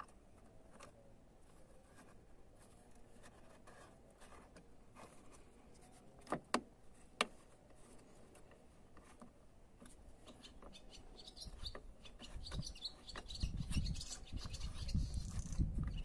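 Metal tool and bolt clicking against a BMW E36 door latch striker as the striker bolt is fitted by hand: scattered light taps, then three sharp metallic clicks about six to seven seconds in. Handling rumble and scraping build up near the end.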